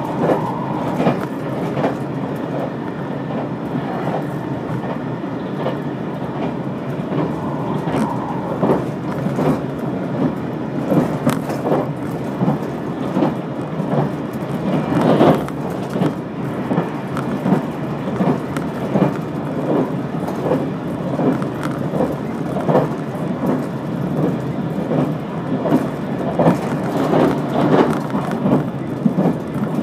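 Steady rumble of a limited express train running on the track, heard from inside the passenger car, with repeated clicks of the wheels over rail joints and one louder knock about halfway through. A steady tone runs under it at first and stops about eight seconds in.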